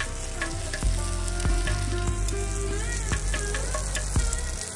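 Paratha sizzling on a hot tawa, a steady frying hiss, with a few light knocks and some steady and gliding tones alongside.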